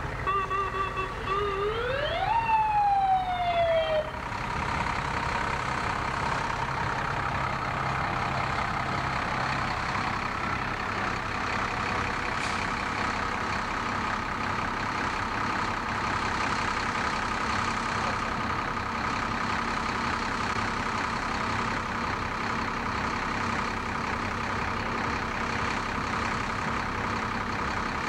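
Fire truck siren giving one short wail: it holds a low note, rises for about a second, then falls and cuts off about four seconds in. Steady engine noise from passing fire apparatus follows.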